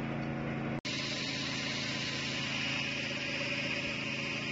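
Hydraulic pipe-cutting chainsaw rig running with a steady mechanical drone, briefly cut off for an instant just under a second in, then carrying on with more hiss.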